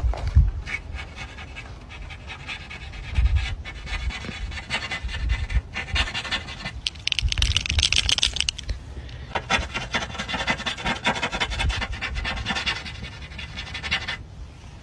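Breathy panting, with scattered clicks and low thumps, and a stronger stretch of breathing about seven to nine seconds in.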